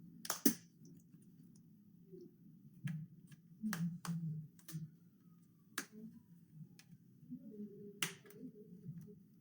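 Plastic clips of a Samsung Galaxy A10's back cover clicking as it is prised off the frame with a fingernail: a string of sharp, irregular clicks. The loudest come near the start and about eight seconds in.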